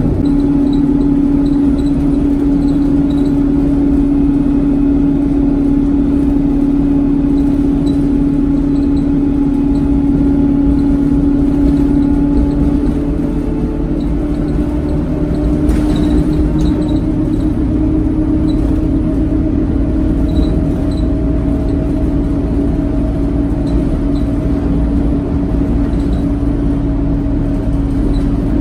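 Interior sound of an Alexander Dennis Enviro 200 single-deck bus on the move: the engine and drivetrain run steadily with a prominent droning whine that rises slightly in pitch about halfway through and then holds, over road rumble and light rattles from the cabin fittings.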